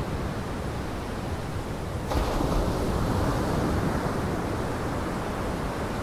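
Lake surf and wind, a steady rushing noise that turns suddenly louder and brighter about two seconds in.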